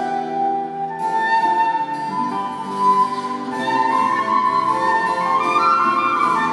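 Wooden baroque transverse flute playing a solo melody, climbing higher in the second half, over a plucked lute and harpsichord accompaniment, in an instrumental passage of an early-17th-century French air.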